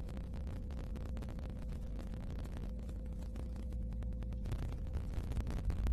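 Refrigerator running: a steady low rumble with a thin hum tone that stops about four and a half seconds in, over faint scattered crackles.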